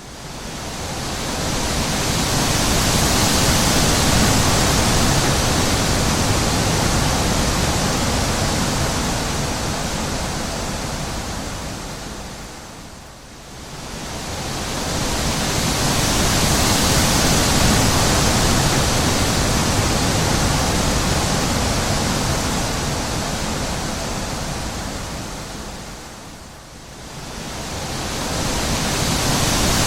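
Wind blowing in long gusts: a rushing hiss that swells and dies away, falling low about every 13 seconds.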